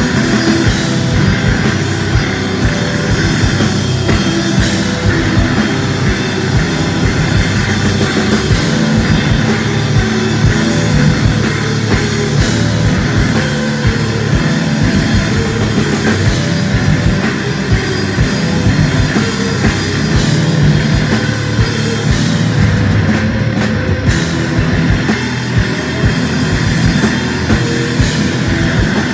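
Live instrumental post-rock band playing loud: a dense wall of electric guitars over bass guitar and a steadily hit drum kit.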